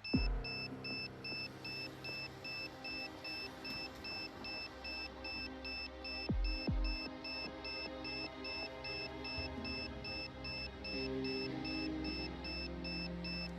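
Electronic background music: sustained tones with a high beep repeating a few times a second and deep falling bass hits near the start and twice about six seconds in.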